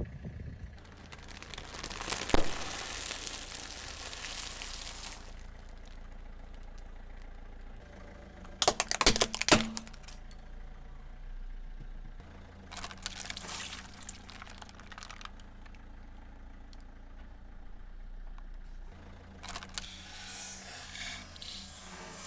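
Car engine running at low speed, with bouts of crushing and crackling as objects are run over by the tyres. The loudest cluster of sharp cracks comes about nine seconds in.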